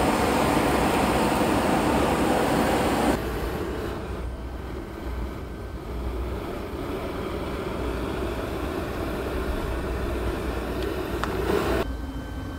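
Gas hand torch flame hissing loudly against the hot glass, cutting off suddenly about three seconds in; then a quieter, steady low rumble of the hot shop's burners.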